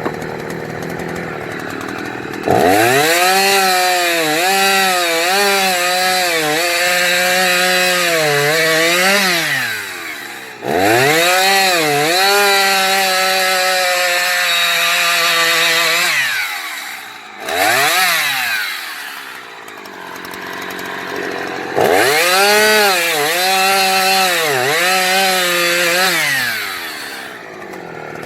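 Husqvarna 357XP two-stroke chainsaw going from idle to full throttle three times, the engine pitch dipping and recovering as the chain loads up in the wood, with a short rev between the second and third cuts. Each time it drops back to a low idle.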